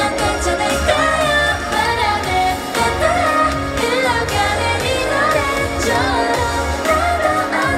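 K-pop song performed live: female vocals singing a melodic line over a pop backing track with a steady bass.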